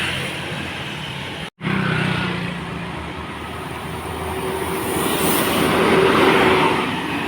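A large tour bus passing close by, its engine running and road noise swelling to a peak about six seconds in, with no horn sounded. The sound cuts out for a moment about one and a half seconds in.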